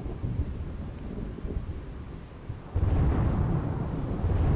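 Thunderstorm sound effect: rain with low rumbling thunder, and a louder peal of thunder breaking in about three seconds in.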